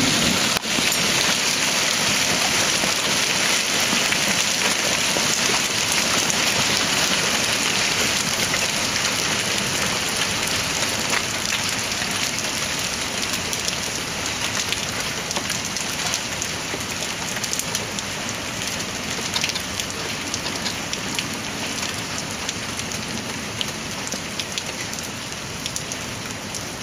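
A heavy downpour of rain mixed with hail falling on a flooded street and lawn. It makes a dense, steady hiss with scattered sharp ticks, slowly easing toward the end.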